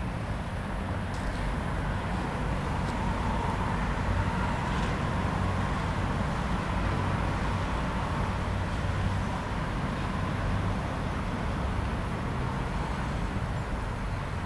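Steady rumble of distant road traffic, with a faint engine hum that swells and fades in the middle.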